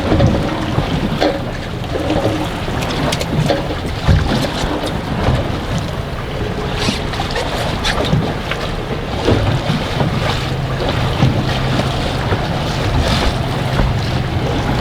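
Strong wind buffeting the microphone and waves slapping against a small boat, a steady rumbling hiss with scattered sharp knocks.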